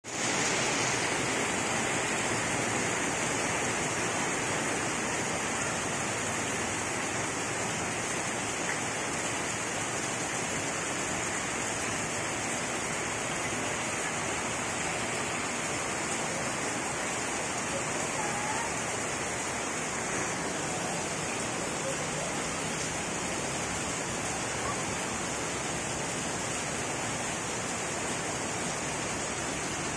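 Heavy rain falling steadily on garden foliage and a gravel path: a dense, even hiss.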